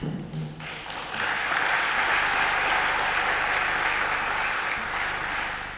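Audience applauding, swelling about a second in and tapering off near the end.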